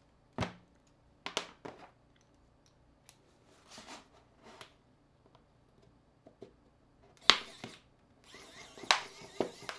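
Small screwdriver and pry tool clicking and tapping against an Asus Zenfone smartphone's casing as it is taken apart, with a few sharp clicks and a scraping rasp in the last second and a half.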